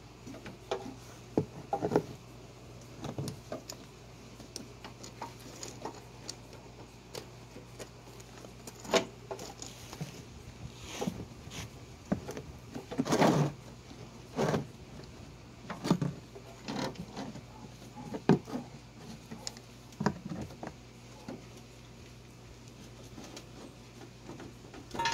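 Scattered clinks, knocks and scrapes of a Cadillac Fleetwood's metal engine oil cooler line being twisted and worked out from behind the radiator, with one longer scrape about halfway through, over a steady low hum.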